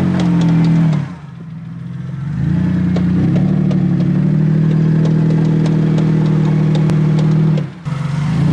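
Mitsubishi Pajero II's 3.5-litre V6 engine revving hard in repeated throttle surges. It drops off about a second in, builds up again over the next second or so and holds high for several seconds, then dips briefly and rises again near the end. Scattered sharp clicks and clatter sound over the engine.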